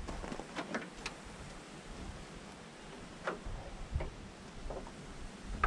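A few light clicks and taps over a low background hum, a quick cluster in the first second, two more later on, and a sharper, louder click at the end.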